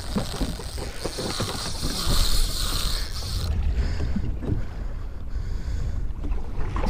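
Wind buffeting the action camera's microphone on an open boat at sea, a steady low rumble with a few knocks. A high steady hiss sits over it and stops about three and a half seconds in.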